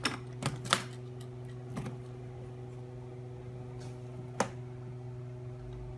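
Aluminium carrying case being opened: a few sharp clicks from its metal latches and lid in the first second, a softer one near two seconds, and a single sharp click about four and a half seconds in, over a steady low hum.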